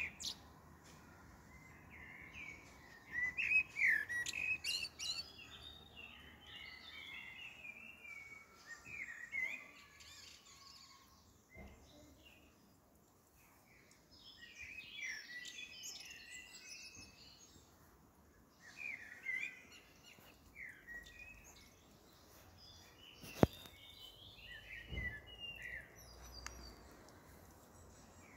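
Songbirds chirping and singing in several bursts of quick twittering phrases, with quieter gaps between them. A single sharp click about two-thirds of the way through is the loudest sound.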